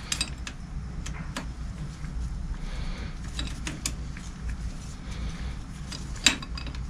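Scattered small clicks and taps of metal parts and a spanner being handled at a gearbox pipe fitting, with one sharper knock about six seconds in, over a steady low hum.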